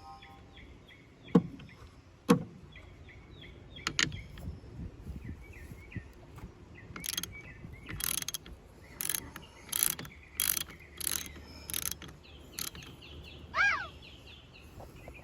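A wrench ratcheting on the battery's positive terminal clamp nut, a 10 mm, working it loose in a run of about eight short strokes, after a few single knocks of the tool against the terminal.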